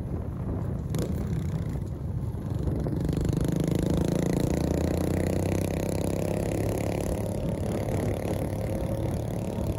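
Motorcycle engine running on the move, with wind rushing over the microphone. About three seconds in the engine note grows steadier and a little louder. There is a single sharp click about a second in.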